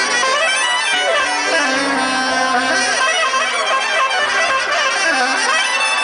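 Soprano saxophone playing a sustained, bending melody live, over an electric bass and drum kit backing.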